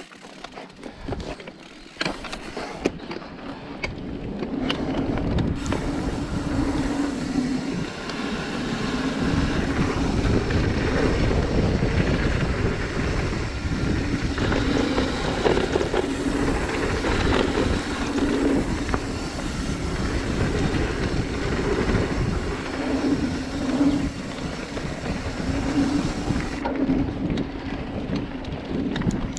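Mountain bike rolling fast down a dirt singletrack, heard from a chest-mounted camera: a steady rumble and rattle of tyres, chain and frame over the trail, with a few sharp knocks early on. It grows louder over the first several seconds as the bike picks up speed, then holds.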